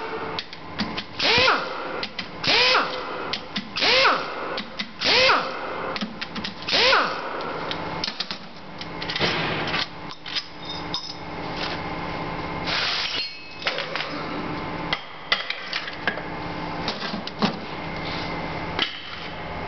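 Workshop power tool run in about six short bursts, roughly one a second, each sweeping up in pitch, then scattered clicks and knocks of tool work over a steady hum.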